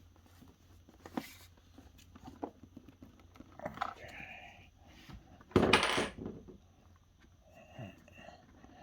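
Collectible figure packaging being handled and opened: scattered light clicks and knocks, with a loud scraping rustle about five and a half seconds in.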